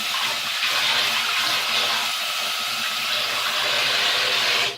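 Sink tap running full, water pouring into the basin in a steady rush, then shut off abruptly near the end.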